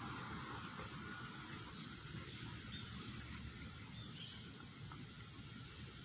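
A steady high-pitched insect trill, which stops about five seconds in, over a low outdoor rumble.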